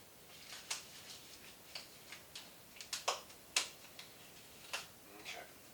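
Handling noise: a string of light, sharp clicks and snaps at irregular spacing, about eight to ten of them, the loudest about three seconds in.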